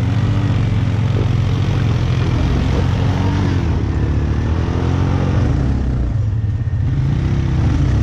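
ATV engines running, the pitch rising and falling as the throttle is worked during slow turns in mud.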